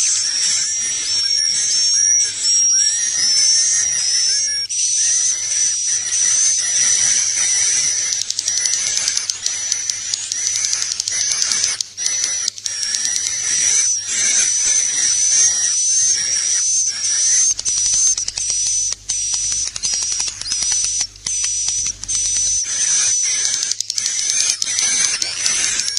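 Recorded swiftlet calls, the 'inap' (roosting) call played inside swiftlet houses to lure the birds to stay. Dense, high-pitched twittering chirps run without a break, mixed with rapid clicking.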